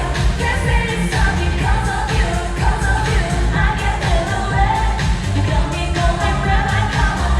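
Live pop song over a concert sound system: a female voice singing over a backing track with a steady bass beat.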